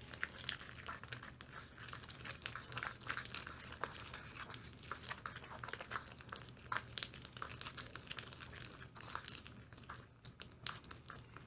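Sticky glue slime being stirred with a spoon in a small plastic bowl: a continuous run of small clicks and crackles as the glue, just dosed with borate contact solution, thickens into slime.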